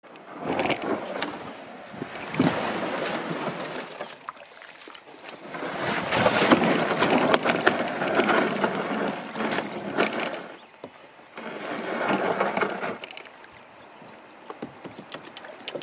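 A plastic sit-on-top kayak hull dragged down a dirt bank and into shallow water, scraping and swishing in several bouts with scattered knocks.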